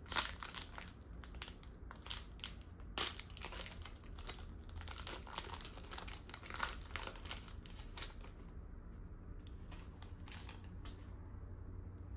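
Crinkling and rustling of a trading-card pack's foil wrapper and cards being handled, dense for about eight seconds and then dropping to a few scattered clicks.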